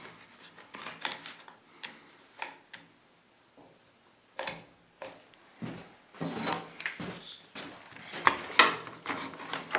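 Clicks, knocks and rattles of bar clamps being fitted and tightened onto a scrap board on a metal table saw top, with the wood shifting and tapping against the metal.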